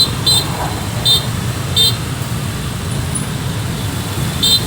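Short, high-pitched vehicle horn beeps sounding repeatedly from a road convoy, about five in all, some in quick pairs, over a steady rumble of engines and traffic.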